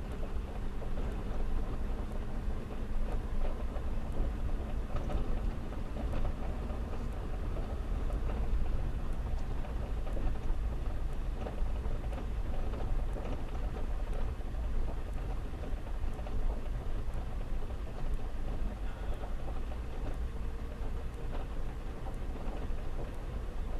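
Vehicle travelling along a road: a steady low rumble of road and wind noise that flutters quickly, with no break.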